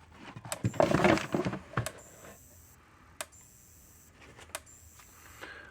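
Repaired DARE DE 2400 electric fence energizer clicking with each output pulse, a sharp tick about every 1.3 seconds. About a second in there is a louder burst of rustling and handling noise.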